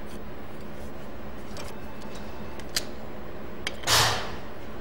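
Locking C-clamp being fitted onto two pieces of steel angle held as a T-joint. A couple of small metal clicks come first, then a short, louder rattle of metal handling as the clamp goes on, just before four seconds in, over a steady low hum.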